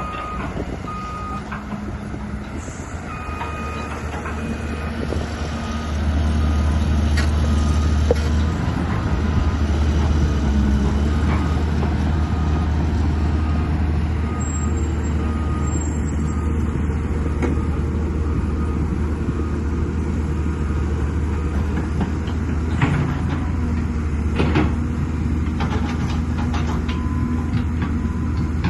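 Excavator's diesel engine running under digging load, getting louder about six seconds in, with a machine alarm beeping steadily in the first few seconds and scattered knocks and clanks of the working machine.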